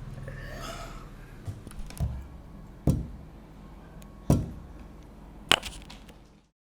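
Four sharp knocks or taps spaced about a second apart, the last one brighter and crisper, over a low steady hum; the sound cuts off abruptly near the end.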